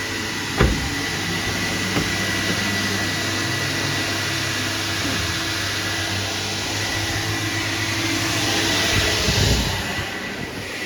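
A 1985 Kärcher coin-operated car-wash vacuum running with a steady rushing noise, a constant high whine and a low hum. A single knock comes about half a second in, and the suction hiss swells louder near the end, then drops back.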